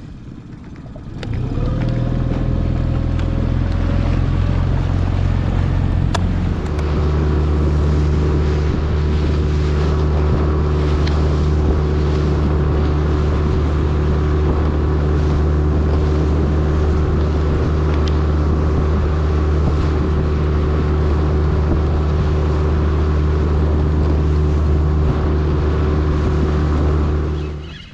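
Outboard motor of an inflatable boat under way: it comes up to speed about a second and a half in, changes pitch again about six seconds in, then runs steadily until it cuts off just before the end.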